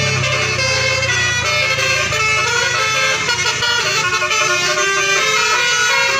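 Tour bus 'telolet basuri' musical air horn playing a melody of quickly changing notes, several tones sounding together. A low rumble underneath fades out about two seconds in.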